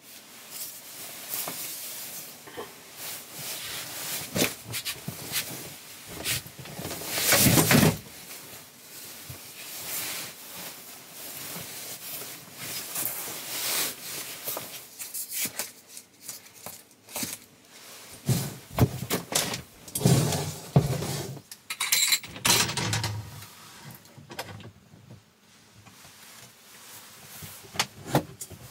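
Things being handled in a small enclosed space: irregular rustling with light knocks and clinks. There is one longer, louder rustle about seven seconds in and a run of sharper knocks past the middle.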